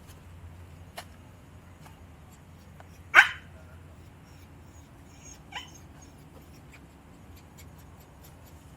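A dog barks once, short and sharp, about three seconds in, with a fainter yelp a couple of seconds later.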